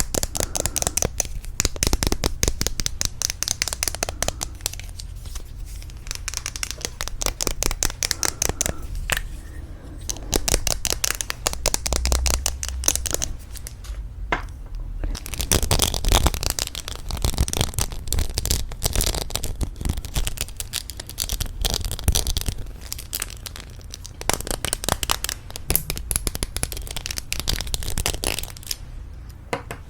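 Rapid tapping on lipstick tubes, a fast run of light clicks with a few short breaks.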